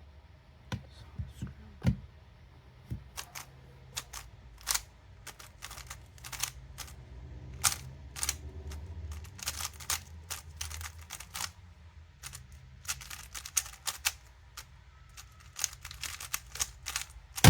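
Moyu Weilong Ferrocore speedcube, freshly lubed, being turned fast during a speedsolve: quick irregular plastic clicks and clacks of the layers turning, coming in flurries, with a louder sharp clack near the end.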